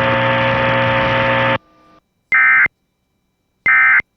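A steady buzzing noise with several steady tones cuts off suddenly about a second and a half in. After a moment of silence come two short, identical Emergency Alert System data bursts, a high warbling screech about 1.4 s apart: the SAME end-of-message code that closes the alert.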